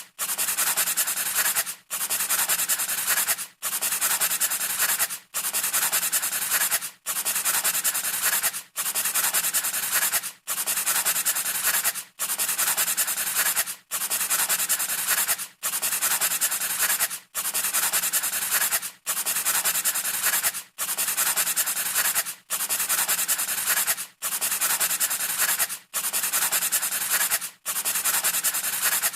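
Pencil scratching on paper in long, even strokes, each lasting about a second and a half with a brief break between, repeating at a steady pace.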